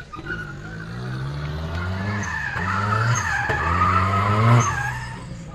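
Lada VAZ-2107 drifting in circles: its engine revs in repeated rising pulls while the rear tyres squeal on the asphalt. It is loudest about four and a half seconds in, then eases off near the end.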